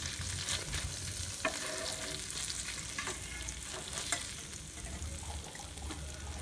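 Prawns sizzling and crackling in hot oil in an open pan as they are turned, with scattered sharp clicks that sound like a utensil tapping the pan.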